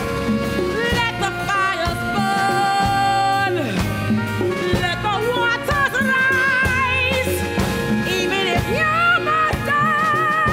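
A woman singing long held notes with wide vibrato over a band's accompaniment, with a steady low bass underneath.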